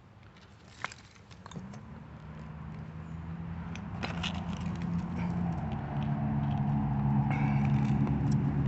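A motor vehicle's engine hum drawing steadily closer and louder, starting about a second and a half in. A few faint clicks and scrapes of digging in gravel come early on.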